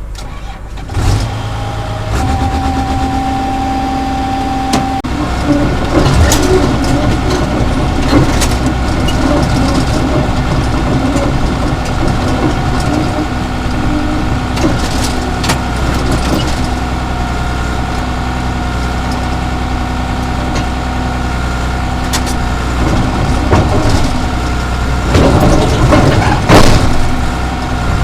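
Diesel engine of a Caterpillar D3C crawler bulldozer running steadily, heard from the operator's cab, with knocks and rattles throughout. A steady high tone sounds for about three seconds near the start, and the clatter grows louder near the end.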